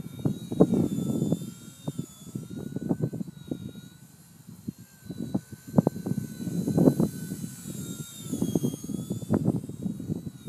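Strong wind buffeting the microphone in uneven gusts, easing for a moment midway, with the thin, wavering whine of a Blade mCP X micro collective-pitch RC helicopter's motor and rotors above it.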